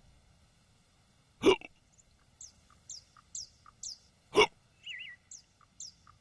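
An old man hiccuping twice, about three seconds apart, each hiccup a sharp, loud catch of the breath. A bird calls between them with short, high, falling chirps repeated about twice a second.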